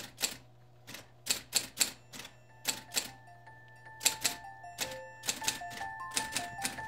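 Olympia Report electric typewriter switched on, its motor humming, with keys striking the paper in irregular clicks. Light chiming background music comes in about three seconds in.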